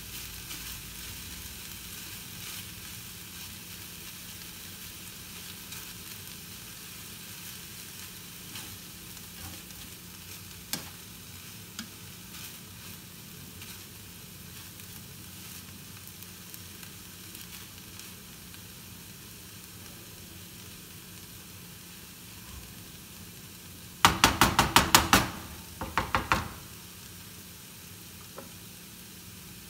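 Smoked marlin, shrimp, onion and poblano pepper sizzling gently in a frying pan over low heat, stirred with a spatula, with a few light clicks. Near the end, two quick runs of loud sharp knocks.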